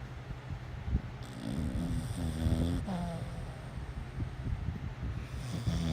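A woman snoring: one long snore from about a second in, lasting about a second and a half, then quieter breathing, and another snore starting near the end.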